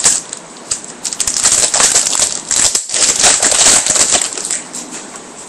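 Crinkling of a foil trading-card pack wrapper and cards being handled: a dense crackly rustle that fades out near the end.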